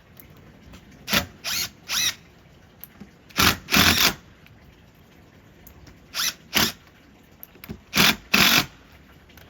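Power drill driving screws to fasten deck boards down, running in short bursts of under a second, several in quick pairs, with pauses between.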